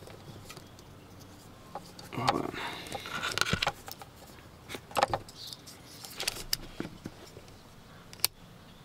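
Light metallic clicks, taps and rustling as crimped spade wire terminals are handled and touched against the terminals of a horn rocker switch, in scattered bursts with a sharp click near the end. No horn sounds: the switch does not work wired this way.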